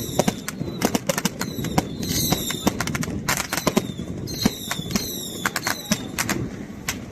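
Firecrackers going off in a rapid, irregular string of sharp cracks.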